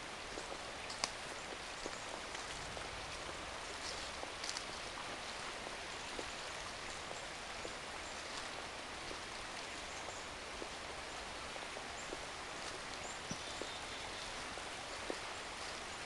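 Steady hiss of a woodland stream running, with scattered small crackles from dry leaf litter and twigs underfoot.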